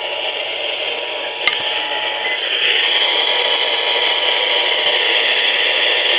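Radio static: a loud, steady hiss with a faint constant tone under it, growing louder about two and a half seconds in, with a single sharp click about a second and a half in.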